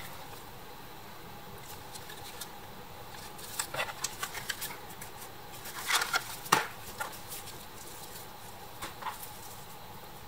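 Scattered light clicks and taps of hands handling small parts and a glue tube on a work mat, with a cluster of louder taps about six seconds in.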